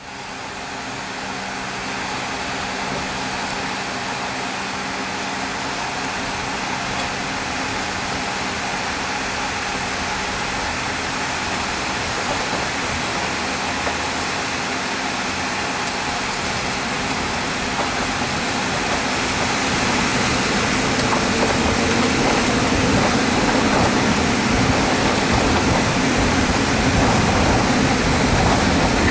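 Cabin noise of a McDonnell Douglas MD-83 taxiing, its two rear-mounted Pratt & Whitney JT8D turbofans running with a steady hum that grows louder and deeper about twenty seconds in.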